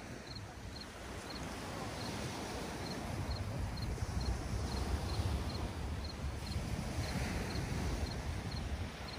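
Wind rumbling on the microphone, gusting stronger in the middle, over a soft wash of surf on the beach. A cricket chirps with short high chirps about twice a second.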